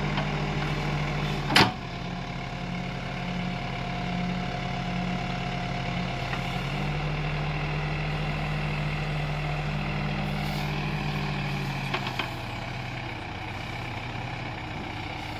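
Backhoe loader's diesel engine running steadily, with a loud sharp bang about a second and a half in and two light knocks near the end.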